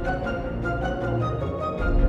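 Background music: sustained pitched notes over a deep bass line, which drops out briefly near the end.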